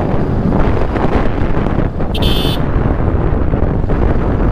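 Wind buffeting the helmet camera's microphone while riding a motorcycle on a dirt road, with the Bajaj Pulsar 220F's single-cylinder engine running underneath. About two seconds in, a short high beep sounds for about half a second.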